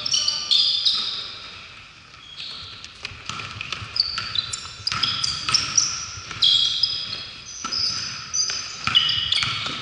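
Basketball shoes squeaking on a hardwood court in short high-pitched chirps, with a basketball bouncing and thudding on the floor as players run up the court.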